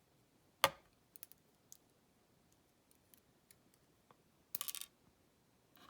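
Small metal padlock parts being handled while the lock is taken apart: one sharp click about half a second in, a few light ticks, then a brief rattle of clicks at about four and a half seconds, as pins and the core are tipped out and moved about.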